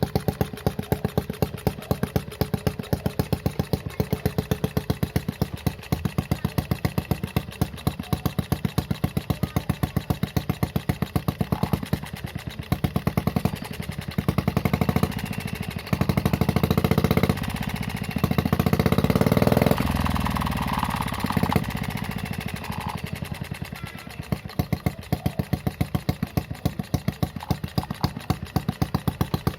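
Homemade mini four-stroke engine idling with slow, even firing pulses. About halfway through it is revved several times, rising in short bursts, then settles back to idle.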